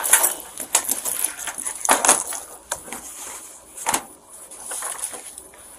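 Handling noise: scattered rustles and sharp clicks, with louder clicks about one second, two seconds and four seconds in.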